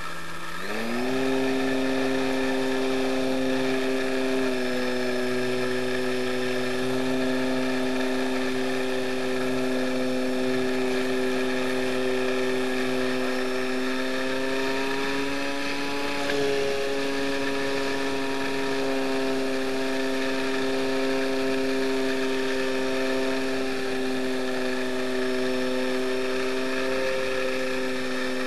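Multiplex Gemini RC model plane's twin electric motors and propellers, picked up close by the onboard camera, spooling up about half a second in to a steady high whine. The pitch rises slightly near the middle, over a steady airflow hiss.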